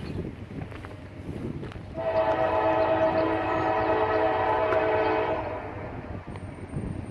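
Norfolk Southern diesel freight locomotive's air horn sounding one long blast of about three and a half seconds, a multi-note chord, over the low rumble of the locomotive.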